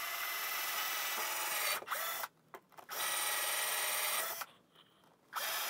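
Handheld electric drill running in three stretches with short pauses between, boring a countersunk screw hole down into a pine shelf board.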